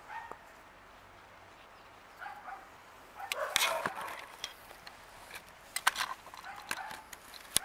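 A few short animal calls, the loudest about halfway through, with several sharp clicks later on.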